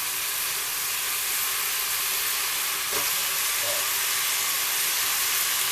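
Pork trotters and turkey neck pieces sizzling in lard in a pressure cooker: a steady frying hiss.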